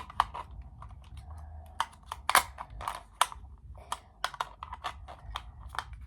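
Irregular light clicks and taps of small batteries and a plastic battery compartment being handled as the batteries are fitted.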